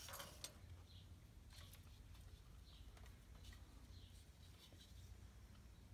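Near silence over a low steady hum, with faint short high chirps about once a second and a few light clicks.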